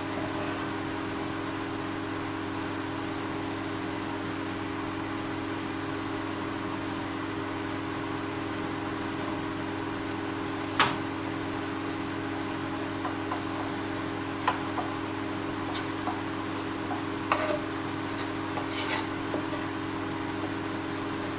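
Steady low hum with a scattering of light knocks and clicks on top. The sharpest knock comes about eleven seconds in, and several softer ones follow in the second half.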